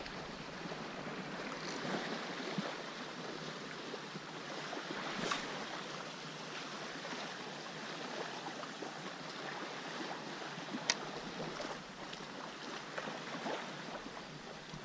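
Shallow sea water lapping and splashing close by at the shoreline, a steady wash of small splashes, with two sharp clicks, one about five seconds in and a louder one about eleven seconds in.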